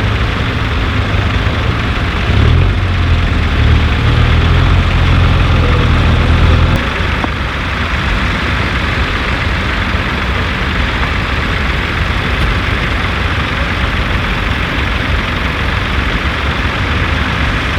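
A heavy engine running steadily, with a louder, deeper engine note from about two and a half seconds in that drops away just before seven seconds.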